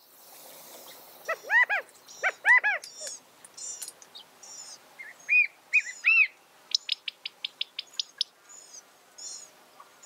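California quail calling: two loud, arching calls in quick succession about a second and a half in, then a scatter of higher chirps, and a quick run of sharp ticks, about six a second, a little past halfway.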